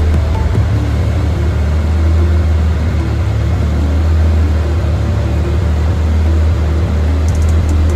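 Car engine idling steadily with a deep, unchanging drone, not revving.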